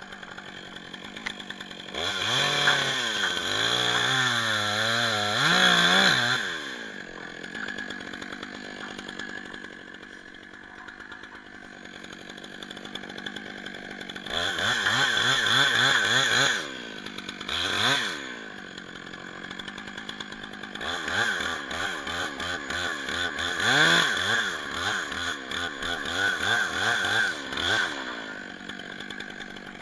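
Stihl 661 two-stroke chainsaw cutting into an ash trunk in several long bursts at full revs, its pitch wavering under load. It drops back to idle between the bursts.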